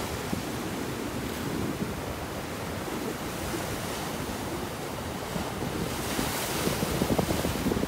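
Ocean surf breaking against a rocky shore. A wave crashes and sprays about six seconds in, and wind buffets the microphone.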